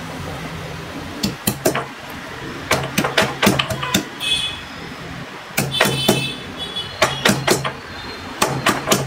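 Stone pestle pounding garlic cloves in a stone mortar: sharp knocks in about five short runs of a few strikes each, with pauses between.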